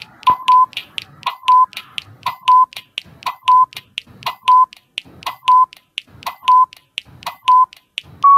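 Quiz countdown timer sound effect: fast clock-like ticking with a short beep once a second as the seconds count down, and a longer beep starting right at the end as the timer runs out.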